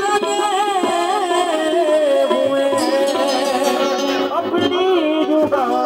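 Qawwali music: harmonium playing with a man's voice singing a sliding, ornamented melodic line.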